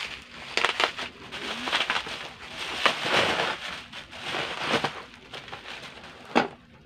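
Plastic bubble wrap crinkling and crackling as it is pulled off cardboard boxes, with one sharp knock near the end.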